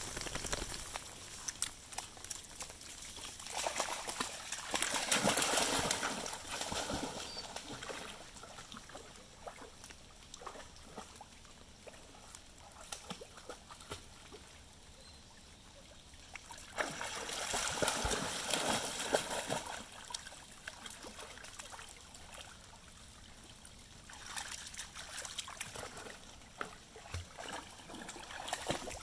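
Dogs wading and swimming through shallow floodwater, splashing and sloshing in three louder spells with quieter trickling and dripping between them.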